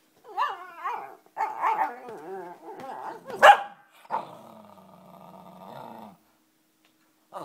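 Two small poodle-cross dogs, a cockapoo and a shih-poo, growling and snarling at each other over a chew bone, the growls rising and falling in pitch. A single sharp bark comes about three and a half seconds in, followed by a steady low growl that stops a second before the end.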